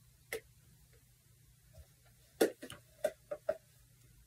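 Light clicks and knocks of small objects being handled: one just after the start, then a quick run of several about two and a half to three and a half seconds in.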